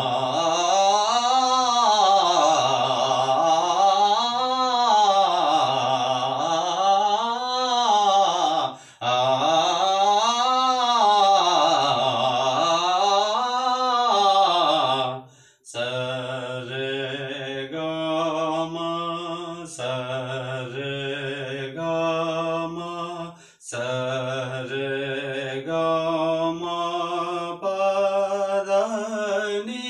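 A man singing solo and unaccompanied. For the first half his voice sweeps up and down in long melismatic phrases, with a short breath about nine seconds in. After a brief pause near the middle it changes to a run of shorter notes that step from pitch to pitch.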